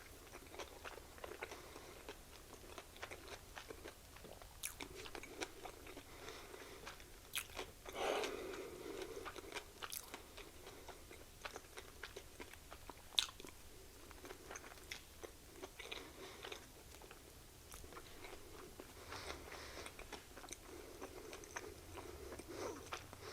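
A person chewing and biting into a blackened chicken sandwich with pickles and mayo, picked up close: soft, wet mouth sounds and scattered clicks, with a louder bite about eight seconds in.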